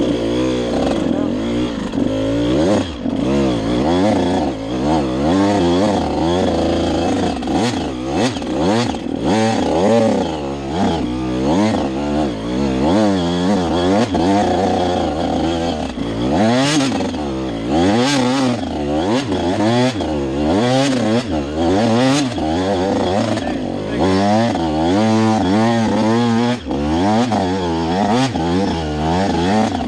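KTM 85 SX two-stroke engine revving hard and unevenly as the dirt bike is ridden off-road, the pitch rising and falling over and over as the throttle is worked on and off.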